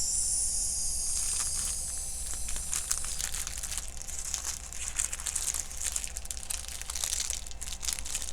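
Small plastic baggies of diamond-painting drills crinkling and crackling irregularly as they are handled and sorted.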